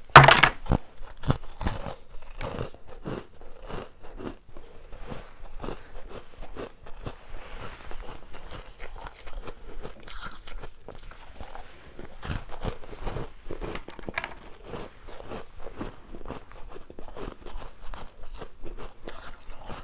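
Frozen basil seed ice being bitten and crunched close to the microphone: one loud, sharp bite just after the start, then steady irregular crunching and chewing of the ice fragments.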